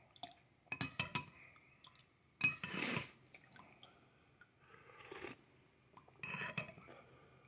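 A spoon clinking and scraping against a soup bowl, with liquid sloshing, in short bursts about a second, three seconds and six and a half seconds in: soup being stirred to cool it.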